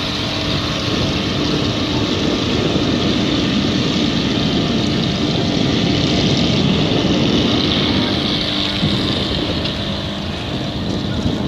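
Motorboat engine running steadily while under way, with a constant rushing hiss over its low hum.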